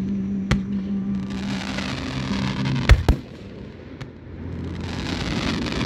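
Aerial fireworks shells bursting: a bang about half a second in and a louder close pair of bangs about three seconds in, with the hissing crackle of burning stars between them. A steady low hum runs under the first half.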